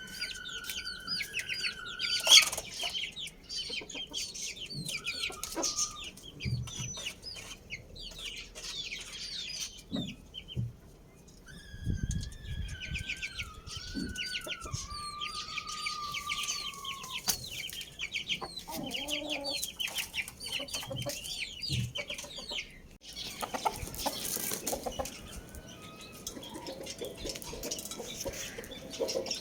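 Roosters crowing in long, drawn-out crows, the longest lasting about five seconds in the middle, over constant rapid chirping of many small birds.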